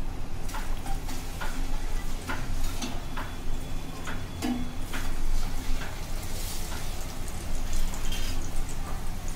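Chakli deep-frying in hot oil in a kadhai: a steady sizzle with scattered sharp crackles, over a low hum.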